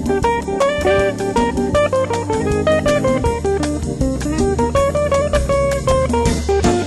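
Background music: a fast plucked guitar melody over bass and drums.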